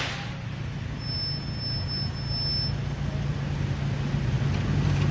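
Pickup truck engines rumbling low and steady as the vehicles roll slowly past in traffic, growing louder toward the end. A faint high steady tone sounds briefly partway through.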